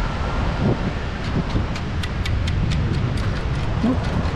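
CKG perforated metal beach sand scoop being shaken to sift sand, giving a run of light clicks and rattles, about four a second, as shells and grit hit the metal basket. Steady wind noise on the microphone underneath.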